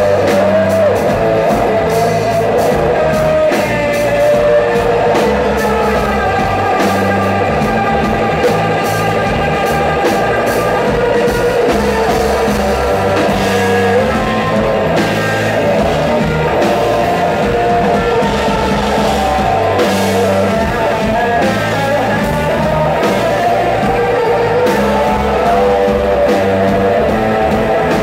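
Live rock band playing loud and steadily: electric guitars, bass guitar, drum kit and acoustic guitar.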